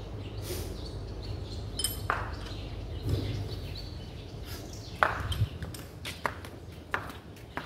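Scattered sharp metallic clicks and clinks, several at irregular intervals with the loudest about five seconds in, from hand tools worked on the valve gear of a Nissan Diesel 8DC11 V8 engine while its valve clearance is being set.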